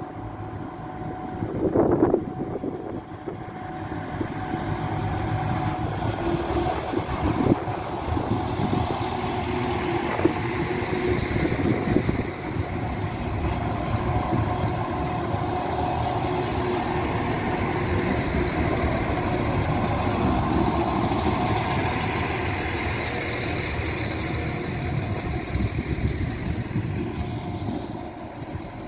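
Irish Rail 22000 Class diesel multiple unit moving slowly past, its underfloor diesel engines running steadily and louder as the cars pass close by. A short loud sound comes about two seconds in, a couple of sharp knocks follow later, and the noise drops near the end.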